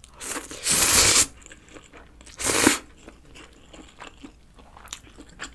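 A person slurping thin stir-fried instant ramen noodles, a long slurp at the start and a shorter one about two and a half seconds in, then chewing with faint wet mouth clicks.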